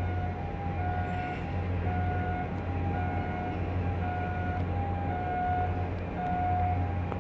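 Steady low drone of heavy port machinery, with a two-tone warning alarm alternating between a higher and a lower note about once a second.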